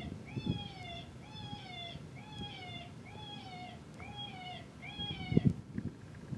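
Electronic predator call playing a looped animal distress cry for coyotes: the same high, arched cry repeats seven times, about once a second. Low thumps come a couple of times, the loudest about five and a half seconds in.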